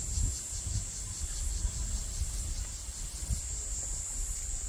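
Insects buzzing steadily in a high, even drone, over a low rumbling noise with small bumps.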